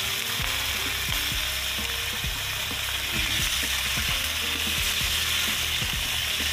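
Clams sizzling in a hot wok as hot water is poured over them: a steady hiss with scattered crackles and pops.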